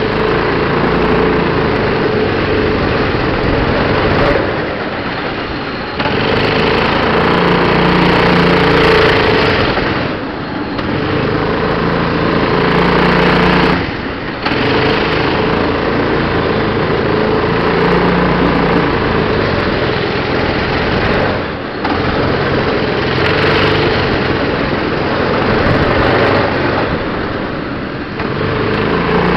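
Go-kart's small petrol engine running hard, heard from on board the kart. Its note dips briefly every few seconds as the throttle is eased, then picks up again.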